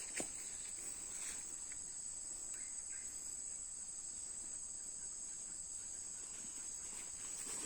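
Steady, high-pitched chorus of insects such as crickets or cicadas, with a couple of faint footstep knocks on the forest ground in the first second or so.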